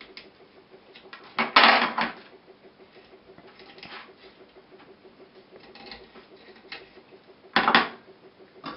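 Knife tip scraping and grinding as it is twisted into a coconut's soft eye to pierce it for draining the water. There are small scratches throughout, with two louder scrapes, one about a second and a half in and one near the end.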